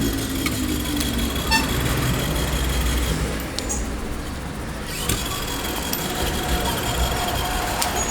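Steady motor vehicle engine noise: a continuous low rumble that starts abruptly, with a faint high whine over it and a few small ticks.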